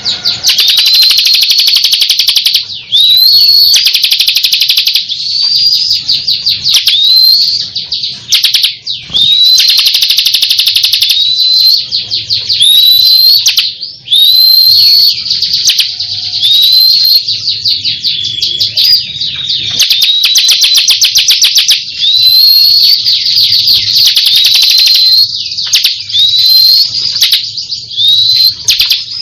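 Bar-winged prinia (ciblek) in full, non-stop song: a loud, fast, high ticking trill, broken about every one to two seconds by a sharp upslurred whistle, with only brief pauses.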